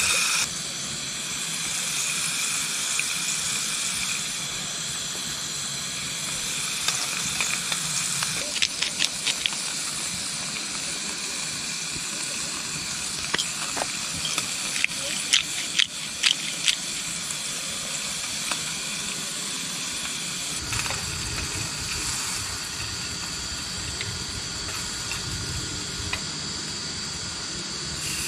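A thin slice of beef frying in oil in a small camping pot over an alcohol stove: steady sizzling, with clusters of sharp pops and spatters about a third and about half of the way in. A low rumble joins about two-thirds of the way through.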